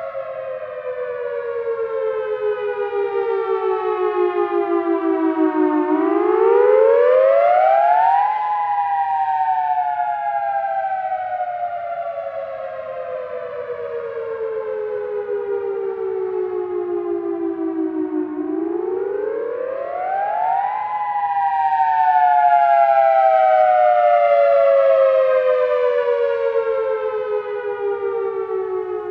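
Outdoor warning siren sounding a wail. Its two-note chord climbs quickly over about two seconds, about 6 s in and again about 18 s in, and after each climb slides slowly down over about ten seconds.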